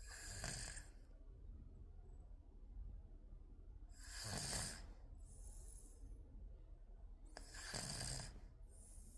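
An 11-month-old baby snoring in sleep: three snoring breaths about four seconds apart, the last two each followed by a softer, airy breath.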